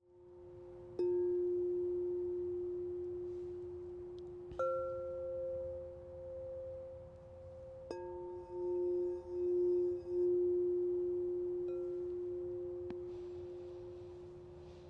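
Crystal singing bowls struck and left ringing in long, slowly fading pure tones. A lower bowl is struck about a second in and a higher one a few seconds later. The lower bowl is struck again near halfway, its tone swelling and pulsing for a couple of seconds, with a couple of light taps after.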